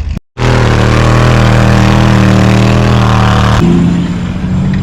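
A vehicle engine running loud and steady close by, with a slight rise and fall in pitch. It starts abruptly after a brief dropout and cuts off suddenly near the end, leaving a quieter engine rumble.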